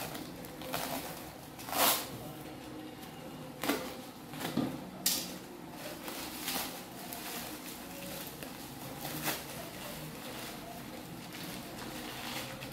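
Plastic bubble wrap and foam packing sheet being pulled and torn off a parcel by hand: irregular rustles and crinkles, the loudest about two seconds in and a sharp crackle about five seconds in, over a faint steady low hum.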